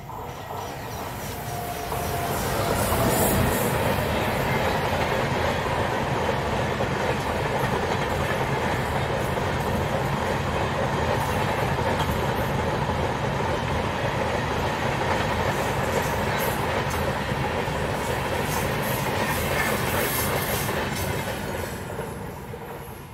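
Tamil Nadu Express passenger train passing close by, its coaches' wheels running over the rails. The noise builds over the first few seconds, holds steady while the rake goes by, and fades near the end.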